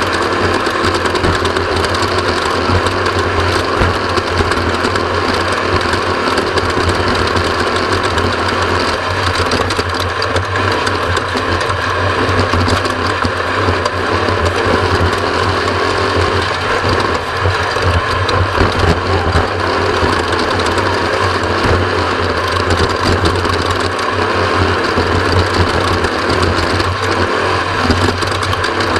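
Off-road race vehicle's engine running steadily under load, with a constant mechanical rattle over it.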